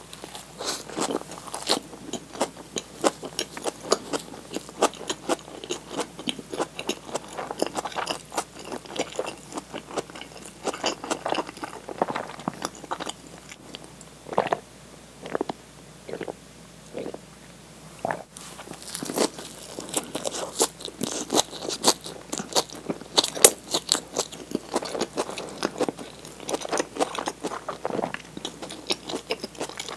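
Close-miked biting and chewing of a convenience-store vegetable sandwich, the crisp leafy greens crunching in quick clicks. In the middle the chewing gives way to a run of gulps, about two a second, as she drinks from a glass, then the crunchy chewing resumes.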